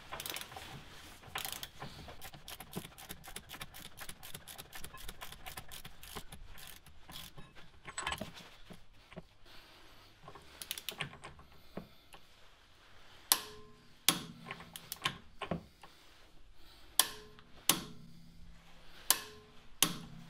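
Ratchet of a long click-type torque wrench clicking rapidly as the new hub nut on a rear stub axle is tightened toward 280 Nm. In the second half come several louder, sharp metallic clicks, each with a brief ring.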